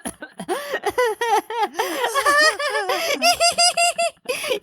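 Two voices laughing together, acted laughter in quick repeated bursts, with a brief break near the end.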